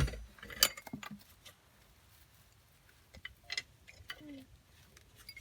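A few scattered light clicks and taps.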